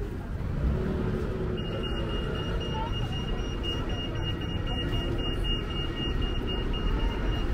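Town street ambience with a low traffic rumble. A high-pitched electronic beep tone starts about a second and a half in and runs for about five seconds before cutting off.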